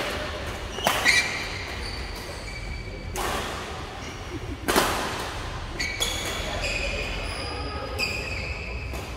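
Badminton doubles rally: rackets smacking the shuttlecock, about five sharp hits a second or two apart, each echoing in a large hall.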